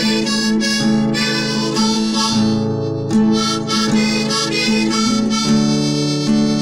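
A gaita (free-reed instrument) playing a melody over sustained chords, with a guitar faintly accompanying.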